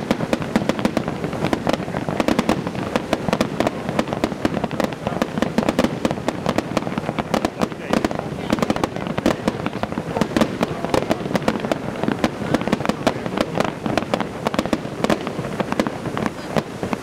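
Aerial fireworks bursting in a dense, unbroken barrage of sharp bangs and crackles, many overlapping each second.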